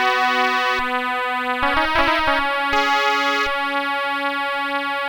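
Instrumental folk-song introduction on a reedy keyboard instrument: a slow melody of long held notes over a steady low drone note, with a few light percussive clicks about two seconds in.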